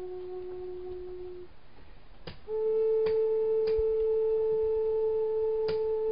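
Music of long held, nearly pure flute-like notes. A low note fades out about a second and a half in. After a short gap and a click, a higher note starts and is held steadily, with a few faint clicks over it.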